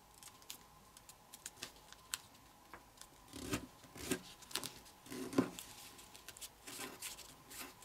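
Faint rustling and crinkling of a square of kami origami paper being folded and creased by hand, with scattered soft clicks and rubs, busier from about three seconds in.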